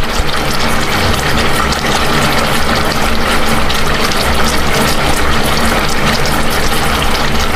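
Fish in vinegar boiling and sizzling hard under a glass lid: a steady loud hiss with fine crackles over a low hum.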